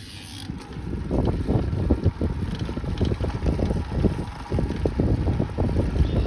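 Irregular creaking from an R45 after its XDR conversion, mixed with heavy wind buffeting on the microphone.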